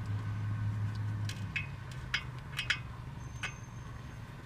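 Scattered light metallic clicks and taps of hand tools and the small T30 Torx rotor retaining screw being handled and started by hand, over a low steady hum that fades out a little over a second in.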